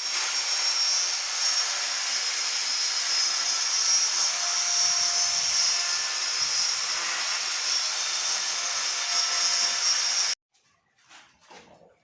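A power tool running steadily at speed, then cutting off abruptly about ten seconds in, followed by a few faint scrapes.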